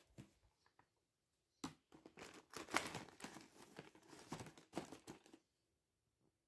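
Paper sheets and a plastic bag rustling and crinkling as they are handled in a plastic storage box. It is a dense run of crackles and rustles from about a second and a half in until near the end, after a few faint clicks.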